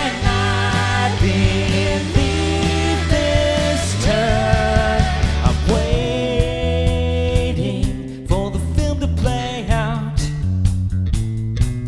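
Indie rock band playing live: drum kit, bass and guitars in an instrumental passage, with a sustained melody line that slides between notes.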